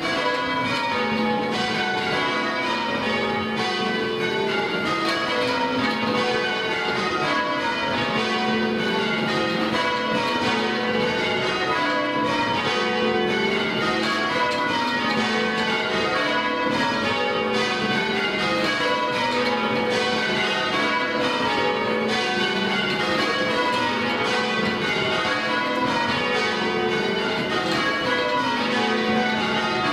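Tower bells in change ringing: a ring of bells swung full circle and struck one after another in continuous rows, each row sweeping down in pitch from the highest bell to the lowest, with the notes overlapping and ringing on.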